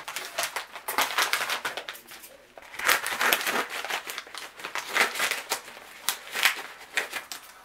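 Yellow padded paper mailer being handled and torn open, its paper crinkling and crackling in repeated short bursts.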